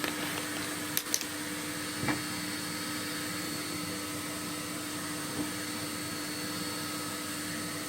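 A vacuum running steadily with an even drone, as a chimney sweep's soot vacuum does while he sweeps. A couple of light clicks come about a second in, and a soft knock about two seconds in.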